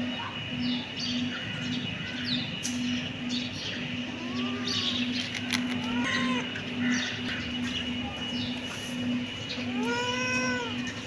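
Several kittens meowing, with short overlapping high mews and a few fuller meows, the loudest about ten seconds in. Under them runs a low hum that pulses about twice a second.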